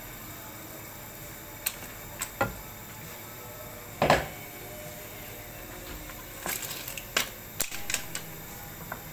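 Cookware knocking and clicking: a wooden spatula and a glass bowl against a stone-coated pan, in scattered sharp knocks with the loudest about four seconds in, then a quicker run of clicks as the spatula stirs the pan. A faint steady hiss runs underneath.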